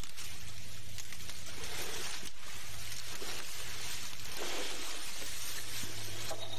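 Steady low hum of a boat's engine running, under an even rushing hiss of wind and water.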